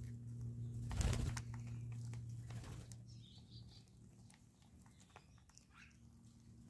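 A flock of wattled starlings at a feeding dish: a burst of wing flapping about a second in, then a few short, high calls and scattered light clicks from pecking.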